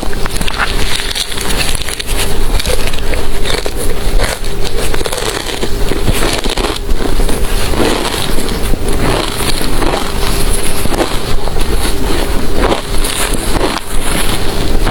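Close-miked ice being bitten and chewed: a dense run of loud, irregular crunches and cracks.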